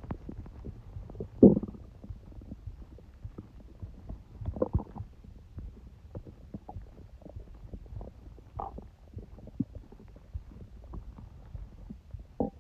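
A person's stomach gurgling: scattered short gurgles and pops. The loudest comes about a second and a half in, with smaller ones around five and nine seconds in.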